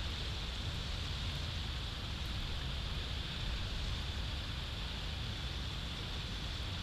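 Steady wind buffeting an outdoor microphone: a low rumble under a constant hiss.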